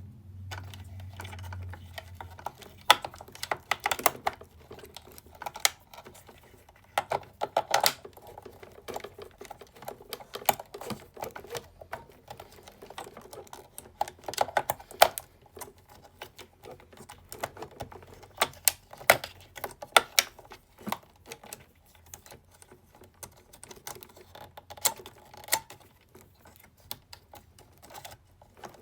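Handling noise: irregular clicks and clatters of small hard objects, AA batteries and hard plastic, being rummaged through.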